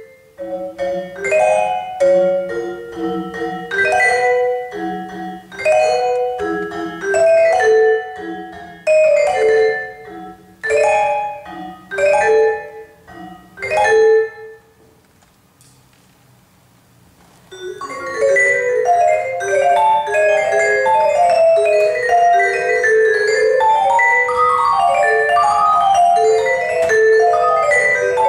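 Solo vibraphone played with mallets: sharp struck chords and short flurries of notes broken by brief gaps, then a pause of about three seconds about halfway through, followed by a continuous rapid stream of notes.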